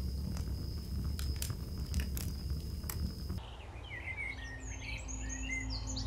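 Wood burning in a wood stove, crackling with a few sharp pops over a steady high whine. About three and a half seconds in, this cuts to small birds chirping repeatedly in a pine forest.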